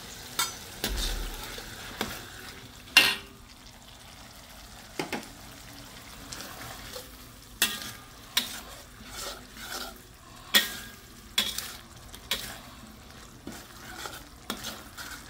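A metal spatula scraping and clinking irregularly against a stainless steel wok as chilli sambal and coconut milk are stirred, over a steady low sizzle from the pan.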